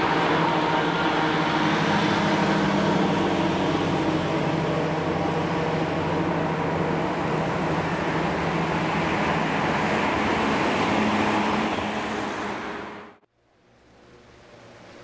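Street traffic with a vintage tram approaching along street track: a steady mix of road noise and humming tones, fading out about thirteen seconds in.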